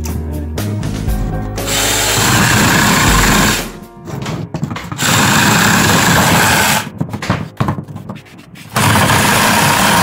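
Cordless mini pruning chainsaw running in three bursts as it cuts through branches, with short pauses between them where the trigger is let go. Music plays for about the first second and a half before the saw starts.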